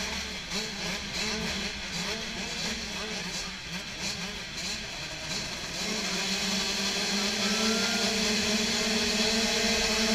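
A field of motocross bikes revving at the start gate, their engine notes wavering up and down. About six seconds in they settle into a steady, louder hum, held at constant revs while waiting for the gate to drop.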